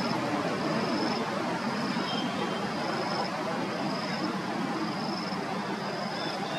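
Steady outdoor background noise, with a short, high-pitched insect call repeating about once a second.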